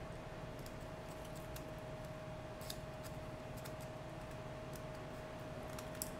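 Faint small clicks and ticks of a hex screwdriver turning the stack screws on a small carbon-fibre drone frame, loosening them, over a steady faint hum.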